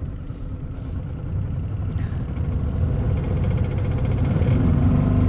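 9.9 hp Selva four-stroke outboard motor throttling up to push a small aluminium jon boat away, growing steadily louder.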